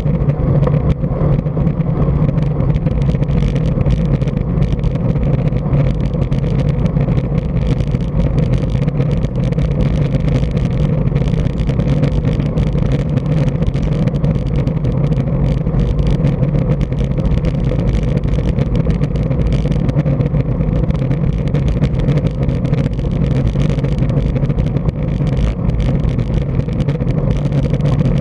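Loud, steady wind rush and low rumble on the microphone of a bike-mounted action camera, riding along a road.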